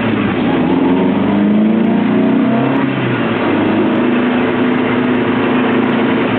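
Lotus Elise engine pulling up through the revs under acceleration, dropping at a gear change about three seconds in, then running at steadier revs. A steady hiss of road and wind noise runs underneath.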